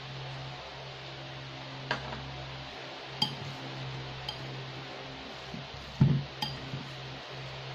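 A metal fork knocking and scraping against a bowl while a tuna mixture is stirred, giving about six sharp clinks with a short ring. The loudest clink comes about six seconds in. A steady low hum runs underneath.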